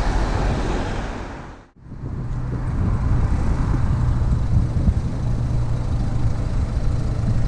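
Car running on the road: steady engine hum and road noise. The sound briefly drops away about two seconds in, then comes back as a steadier low engine hum.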